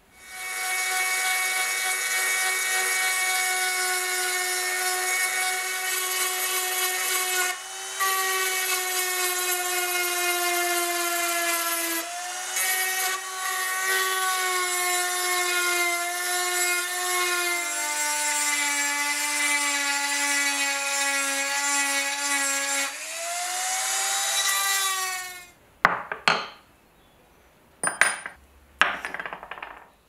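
Handheld rotary tool with a small ball burr grinding the rust-pitted surface of a steel pocket-knife blade: a steady high motor whine with two short breaks, dropping in pitch a little past halfway, then stopping. Three short scraping knocks follow near the end.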